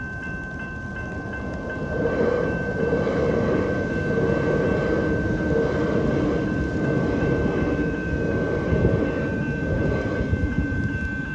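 A train running past over a level crossing, its rumble building about two seconds in and holding, while the crossing's electronic bell rings with a steady tone throughout.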